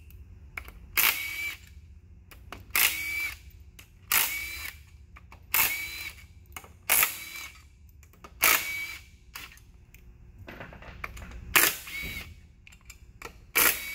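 Compact cordless impact wrench running in short bursts, about eight times, each under a second, as it spins out the water pump mounting bolts one after another.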